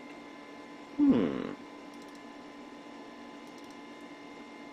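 Steady electrical hum of the running computer setup with a few faint mouse clicks. About a second in, a man gives a short, falling 'hmm'.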